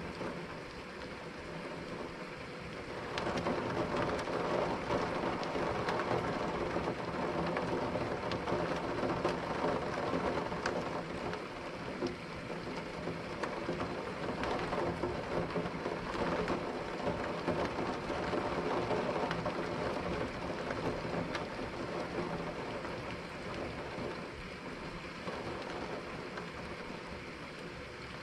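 Steady rain during a thunderstorm, with scattered drop ticks. About three seconds in, a long rolling swell of thunder rises and rumbles on, then eases back a few seconds before the end.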